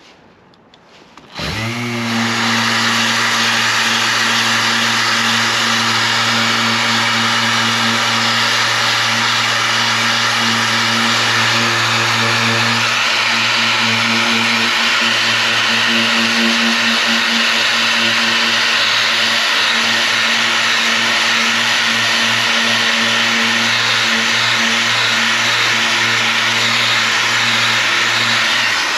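Power sander with a 180-grit disc spinning up about a second and a half in, then running steadily against a car bumper's painted plastic, sanding out cracked paint.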